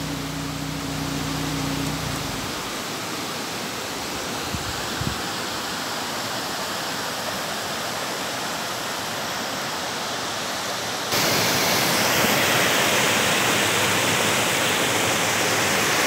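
Steady rushing of river water over rocky rapids and small waterfalls. About eleven seconds in it jumps abruptly to a louder, closer rush of white water.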